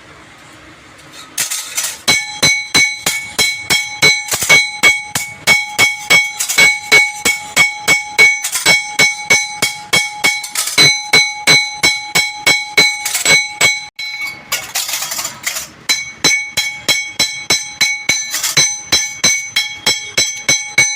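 Steady hammer blows on metal, about three a second, each with the same clear metallic ring: riveting new friction lining onto a truck clutch plate. The blows stop for a couple of seconds about two-thirds of the way in, then resume.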